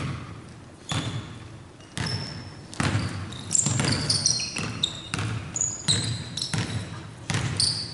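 A basketball bouncing on a hardwood gym floor, about once a second, each bounce echoing in the hall. Short high-pitched sneaker squeaks come through the middle and again near the end.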